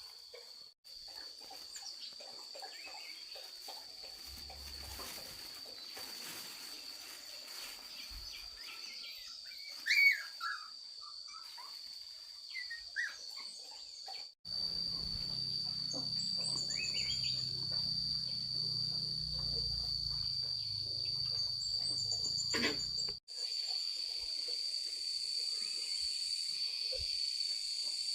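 Outdoor ambience of a steady, high-pitched insect drone with scattered bird chirps, and a sharp knock about ten seconds in. The sound changes abruptly a few times.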